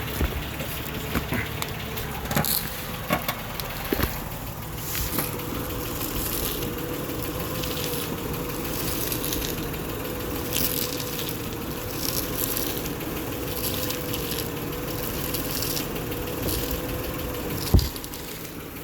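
2007 Honda Odyssey's 3.5 L V6 idling while the steering wheel is turned to find a steering noise. A steady whine sets in about four seconds in, with scattered clicks early on and one sharp knock near the end.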